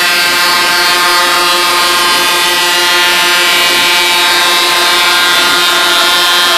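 Truck air horns sounding a loud, steady chord of several notes, held without a break.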